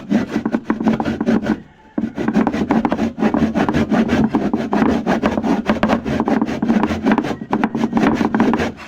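Hand saw cutting with quick back-and-forth strokes, with a brief pause about two seconds in before the sawing resumes.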